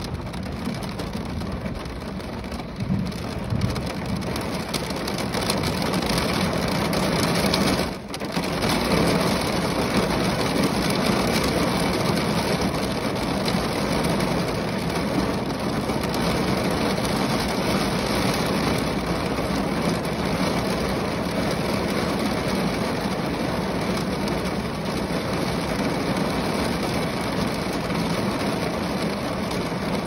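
Rain falling steadily on the roof of a car, a dense even patter. It grows a little louder over the first several seconds and drops out for a moment about eight seconds in.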